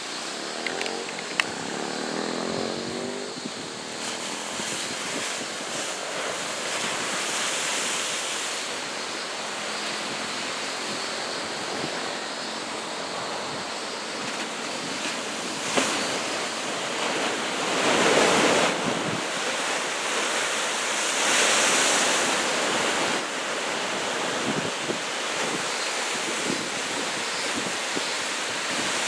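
Ocean surf breaking and washing in, a typhoon swell of about two metres, as a steady rush with two louder surges of breaking waves a little past the middle. Wind buffets the microphone at times.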